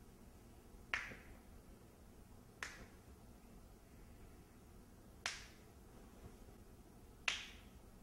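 Finger knuckles cracking as each finger is pulled in turn: four separate sharp pops, a second or two apart.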